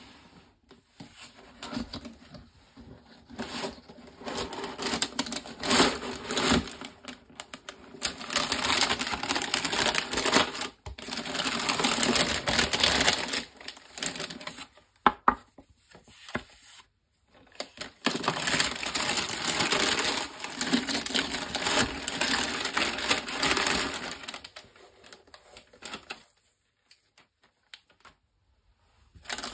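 Tissue paper crinkling and rustling as it is folded back and handled in bursts, with short pauses and a quieter stretch near the end.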